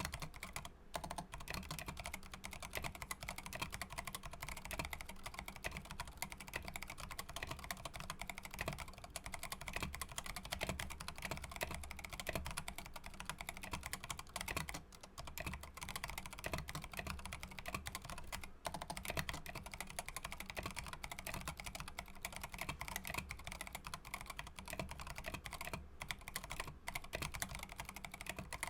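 Continuous fast typing on a Savage65 mechanical keyboard with a polycarbonate case, FR4 plate, stock T1 tactile switches on 62 g springs and MT3 Serika PBT keycaps: a dense run of key clicks and clacks with only brief pauses.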